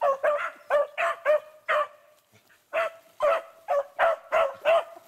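Beagle barking in quick, short yelps of a steady pitch, about three a second, in two runs broken by a brief pause about two seconds in.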